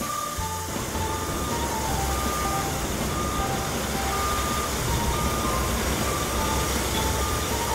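Cartoon sound effect of a tunnel-boring drill vehicle's motor and drill grinding through earth, a steady rumble that swells in just under a second in. A simple tune of short beeping notes plays over it.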